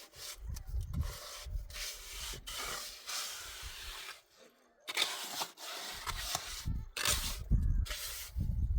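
Irregular rubbing and scraping strokes with low rumbles between them, pausing briefly about halfway through.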